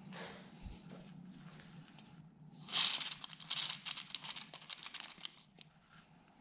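Fluid Film aerosol can spraying through its thin extension straw onto a metal part: a hiss about two and a half seconds in, sputtering and spitting in quick spurts for some two and a half seconds. Softer handling noise comes before it.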